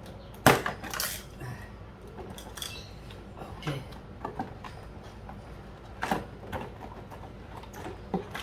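Hard plastic items being handled and set down: scattered sharp knocks and clatters, the loudest about half a second in and again around six seconds in.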